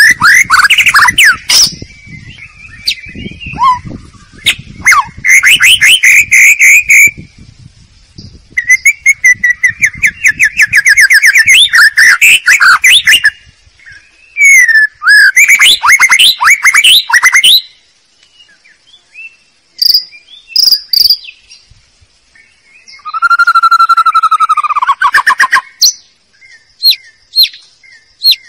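White-rumped shama (murai batu) song, loud, played as a lure call (pikat). It runs as a string of varied phrases with short pauses between them: fast trills, quick runs of repeated notes and slurred whistles, then a lower drawn-out phrase and, near the end, a series of short sharp notes.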